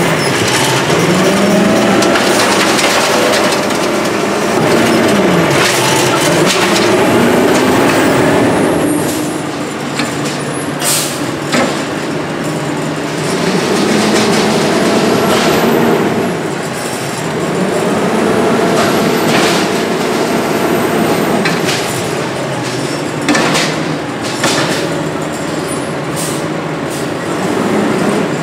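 Diesel engine of an automated side-loader garbage truck (Condor with an Amrep HX-450 body) revving up and down in repeated cycles as the hydraulic arm lifts and tips carts. Sharp knocks from the carts and arm come in now and then, twice loudly.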